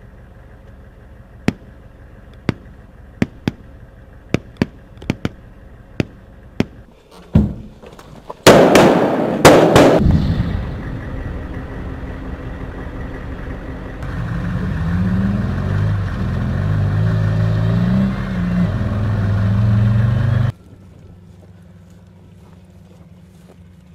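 Scattered single rifle shots, then several loud heavy-weapon blasts about 8 to 10 seconds in, followed by a Stryker armoured vehicle's engine running as it drives, its note rising and falling, until it cuts off abruptly near the end.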